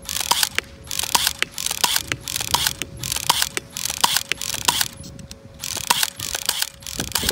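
Battery-powered electric blowback airsoft pistol, an HK P30 replica, firing shot after shot on semi-auto. Each shot is a short whirring, clacking mechanical burst from the gearbox and slide, repeated roughly every two-thirds of a second, with a brief pause about five seconds in.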